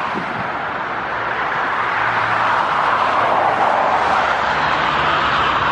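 Jet engines of an Airbus A320-family airliner during the landing roll just after touchdown: a steady roar that swells towards the middle, with a faint low hum underneath.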